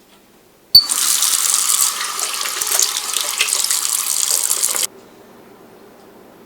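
Water tap running into a sink for about four seconds, coming on suddenly about a second in and cut off abruptly.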